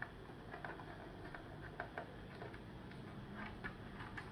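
Small screwdriver loosening a screw in the plastic case of a Huawei B622 router, giving a series of faint, irregular clicks and ticks.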